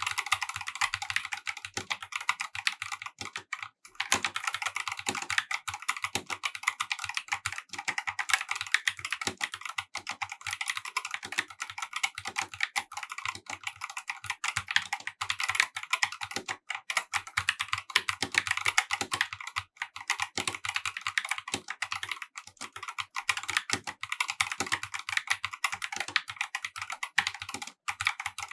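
Fast continuous typing on a Corsair K70 RGB TKL OPX tenkeyless mechanical keyboard with OPX linear optical (red) switches: a dense run of keystroke clacks, with a brief pause about four seconds in.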